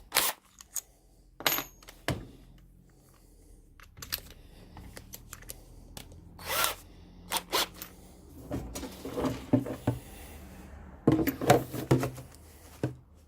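Scattered clicks and knocks of hand-held tools being handled, with a quick run of clicks near the end, as a drill bit is swapped for a larger one in the drill's chuck.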